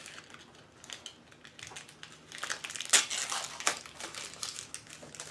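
Wrapping on a bar of handmade soap crinkling and crackling in irregular bursts as it is handled and opened, with one louder crackle about three seconds in.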